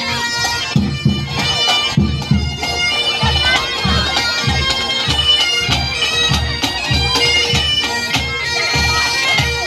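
Pipe band playing on the march. Highland bagpipes sound a steady drone under the changing chanter melody, while drums, including a bass drum, beat a steady march rhythm of about two strokes a second.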